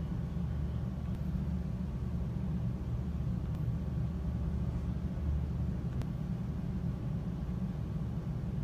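A steady low rumble, even throughout, with nothing pitched or rhythmic above it.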